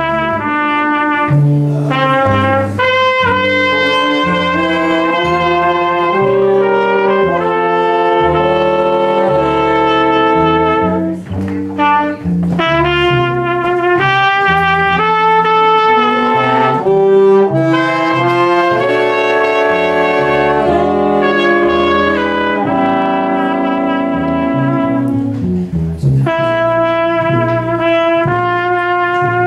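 A small horn section of trumpets and trombone playing together in chords, holding and changing sustained notes, with a brief break about eleven seconds in.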